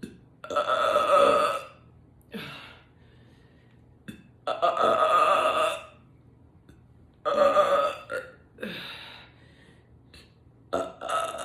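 A woman belching several times in a row: long, loud, pitched burps about half a second and four and a half seconds in and another about seven seconds in, with shorter burps between them.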